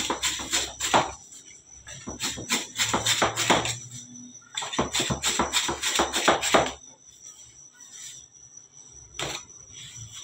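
Metal bench scraper chopping dough against a steel worktable beside a metal straight edge, in three quick runs of clicking, clattering knocks, then a single knock near the end.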